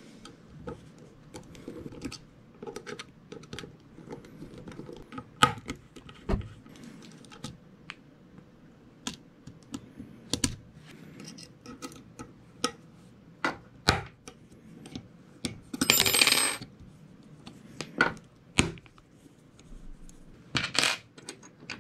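Small metal parts of a VSR-10 airsoft rifle's hop-up unit clicking and clinking as it is unscrewed and taken apart by hand with a screwdriver: scattered sharp taps and ticks, with a short scraping rattle about three-quarters of the way through.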